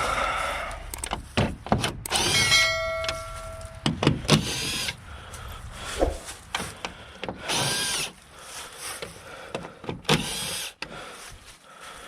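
Cordless power drill/driver whirring in several short bursts as it spins up and down, with clicks and knocks of tool work between them.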